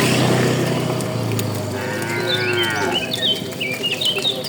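Cow mooing: one long low moo that fades out about three seconds in, with a higher call overlapping near its end. A bird then chirps in quick short notes.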